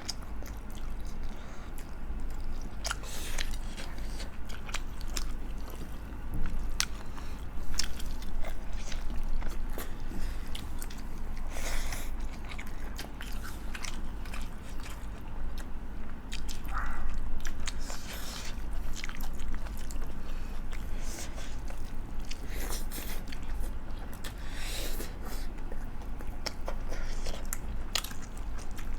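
Close-up eating sounds: chewing and biting into rice and curry, with scattered wet clicks and smacks and a few louder crunchy moments, likely papad.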